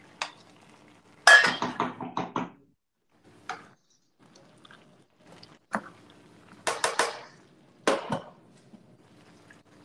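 A cooking utensil knocks and scrapes against a pot in several short clusters of clinks. The loudest run comes about a second in.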